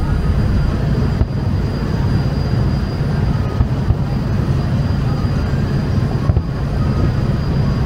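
Ferryboat underway, its engines giving a steady low rumble over the rush of water and wind, with a faint steady high whine on top.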